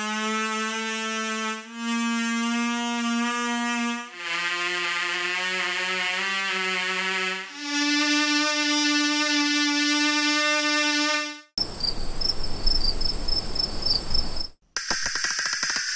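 Paper oboe, a paper straw with a flattened reed end, blown in four long buzzy notes, each held for a few seconds at a different pitch. It stops after about eleven seconds; a hiss with a thin high whine follows, and rapid clicking starts near the end.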